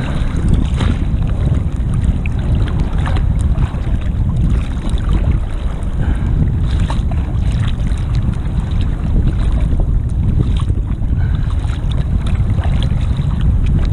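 Choppy seawater sloshing and splashing close to the microphone, with gusty wind buffeting it. There are irregular small splashes throughout.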